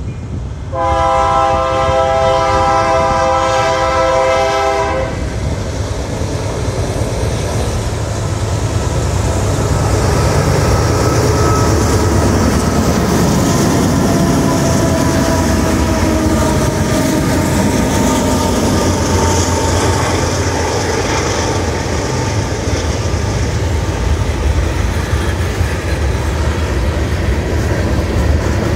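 Diesel freight locomotive horn gives one long blast, lasting about four seconds, starting about a second in. The locomotives then pass close by with a heavy engine rumble, followed by freight cars rolling past with steady wheels-on-rail noise and clatter.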